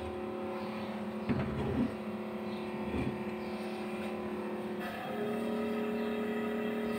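A metal cooking pot set down on a gas stove's burner grate, with a few knocks, over a steady machine hum of several tones. The hum grows a little louder about five seconds in.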